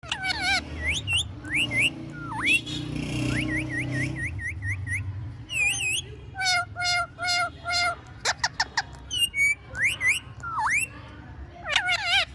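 Pet parrot calling and whistling: a string of short chirps and whistles, many swooping up or down in pitch, with a quick run of repeated notes about halfway through.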